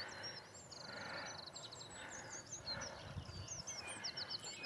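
Small songbird singing: a string of quick, high chirps with a short rapid trill about half a second in, over faint outdoor background noise.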